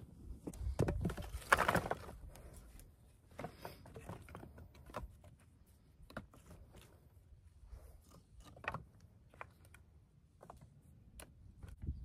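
Footsteps crunching through dry grass close by, loudest about a second or two in. Then dry, weathered firewood sticks knocking and clacking against each other in scattered single clicks as they are stacked into a small pile by hand.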